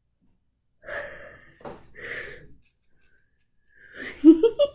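A woman gasps twice, with two sharp breaths about a second apart. Near the end comes a short burst of laughter.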